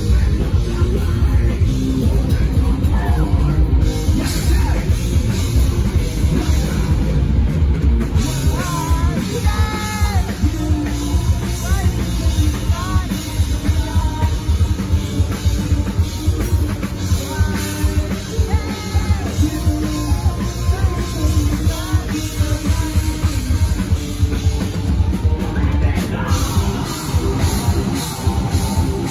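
Rock band playing live, with a drum kit and a dense, loud full-band sound; a bending melodic line comes in about nine seconds in.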